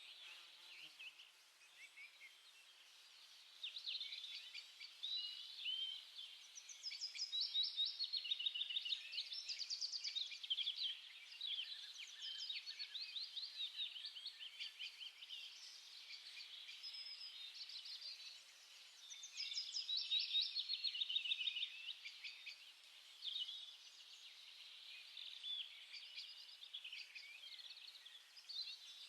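Several small birds chirping and twittering over one another. Louder runs of rapid trilled notes come about a quarter of the way in and again about two-thirds of the way through.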